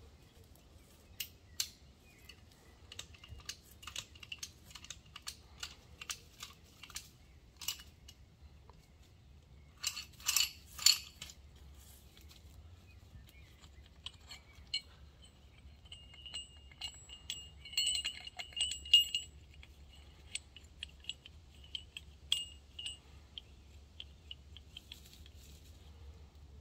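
Metallic clicking and clinking from a lever hand winch and its steel wire rope and hook: scattered sharp ratchet-like clicks, a short cluster of louder clanks about ten seconds in, then a run of ringing metal clinks as the rope fitting on the boulder is handled.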